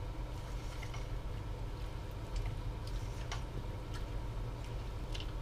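A spoon stirring sliced apples in a pot, giving a few faint, irregular ticks against the pot, over a steady low hum.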